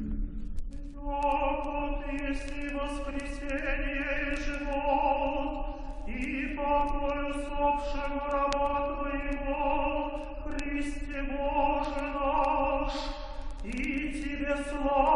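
Orthodox liturgical chant sung in Church Slavonic: slow, long held notes, with a new phrase starting about six seconds in and another near the end.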